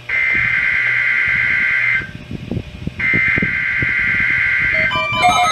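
Two bursts of NOAA Weather Radio SAME header data for a required weekly test, a buzzing two-tone warble of about two seconds each with a one-second pause between. Near the end, several weather radios set off by the header start sounding at once, with overlapping alert tones and beeps.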